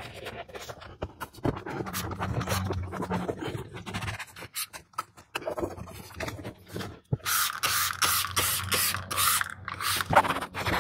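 A cloth wiping and rubbing over a car's interior plastics and upholstery with interior cleaner, in irregular scraping, scratching strokes. About seven seconds in comes a quick run of about seven short hissing strokes, about three a second.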